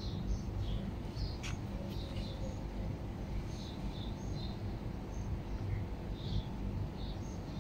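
Small birds chirping: short, high chirps come irregularly throughout, over a low steady rumble. A single sharp click comes about one and a half seconds in.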